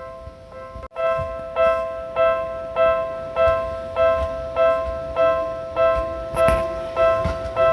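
Japanese railway level-crossing warning bell ringing, an electronic clang struck over and over at a steady pace of about one and a half strikes a second. It is faint at first, breaks off for an instant about a second in, then goes on much louder.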